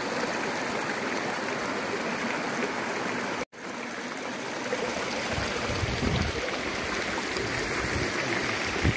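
Rushing water of a monsoon stream or waterfall, flowing steadily. The sound cuts out for an instant about a third of the way in. Irregular low rumbles run under it in the second half.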